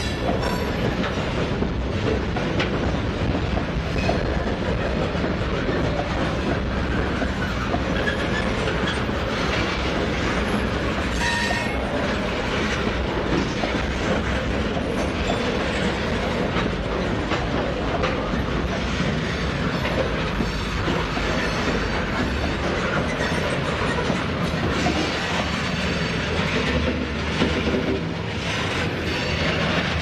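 Freight train of covered hopper cars rolling past, wheels clicking over the rail joints in a steady rumble, with a brief wheel squeal about eleven seconds in.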